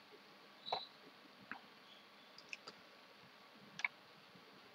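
A few faint, sharp computer mouse clicks, spaced about a second apart, as items are selected in diagramming software.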